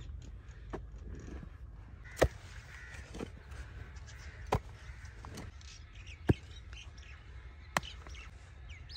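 A hand hoe striking hard, dry earth while a pit is dug, with loose clods and bricks knocked into place around its rim: about seven sharp thuds, one every second or so. Birds chirp in the background.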